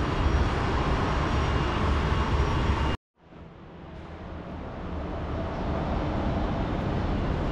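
Steady rumbling noise of a large aircraft maintenance hangar, with no distinct event in it. It cuts out abruptly about three seconds in, then fades back up to the same steady noise over the next few seconds.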